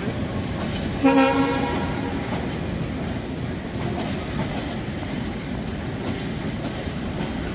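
Empty passenger train coaches rolling slowly over the tracks with a steady rumble and wheel clatter, and one short locomotive horn blast about a second in.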